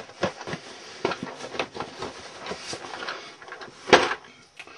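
Model kits and parts being handled in a storage cabinet: a run of rustling and small knocks, with one louder knock about four seconds in.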